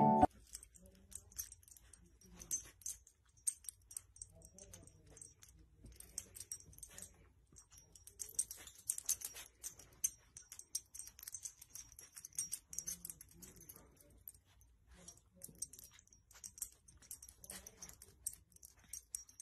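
A small dog sniffing and nuzzling at a swaddled newborn's blanket: faint rustling and soft clicking, busiest from about eight to ten seconds in.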